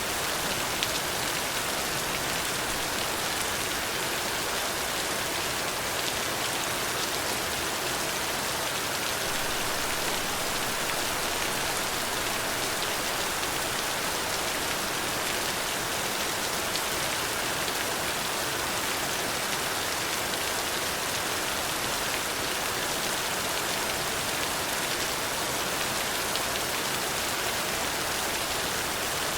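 Steady rain falling on a surface, an even hiss with occasional individual drop ticks.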